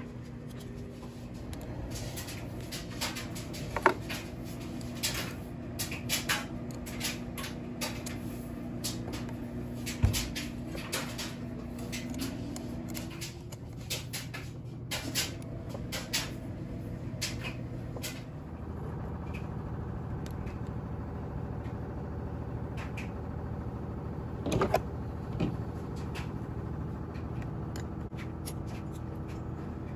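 Hex driver and small metal screws clicking and tapping as the shock tower screws of an RC buggy are worked loose. The clicks come thick and fast for the first half and thin out later, over a steady background hum.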